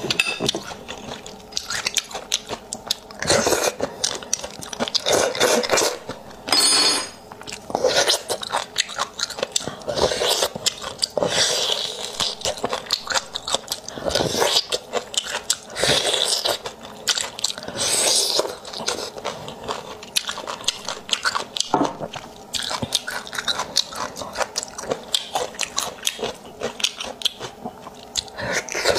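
A woman chewing and biting spicy pork bone marrow, with dense wet clicking and crunching mouth sounds throughout and a brief high-pitched squeak about seven seconds in.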